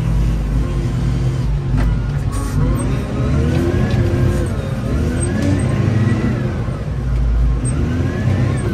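Wheel loader's diesel engine running, heard from the cab, revving up and down as the machine works forward, with a whine that rises and falls in pitch along with the revs.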